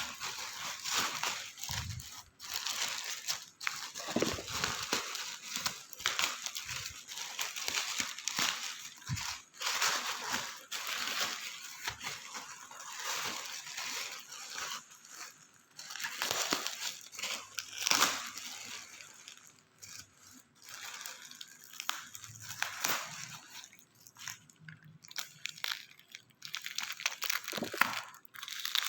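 Parcel packaging being handled and opened: irregular crinkling and rustling of plastic wrap with scattered clicks and knocks, the loudest about two-thirds of the way through.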